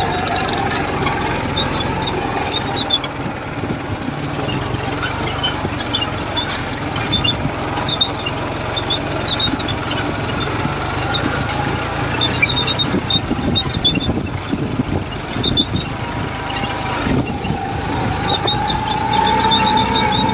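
Powertrac Euro G28 mini tractor's diesel engine running steadily under load in second high gear while dragging a sandbag-weighted leveller through tilled soil, not bogging down. A steady whine sits over the low engine drone; it fades through the middle and comes back near the end.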